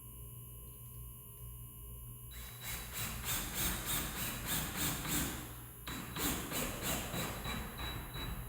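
Rapid, even knocking at about four strikes a second from tool work on a door jamb during a deadbolt install, in two runs with a short break between them.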